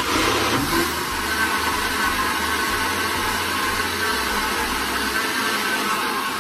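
Countertop blender switched on, its motor starting abruptly and running at a steady speed as it blends a thick papaya punch.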